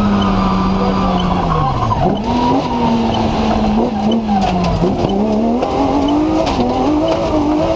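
BMW M3 engine of a TMC off-road racer under hard driving, heard from inside the car. Revs fall sharply about two seconds in and dip again near five seconds, then climb steadily toward the end.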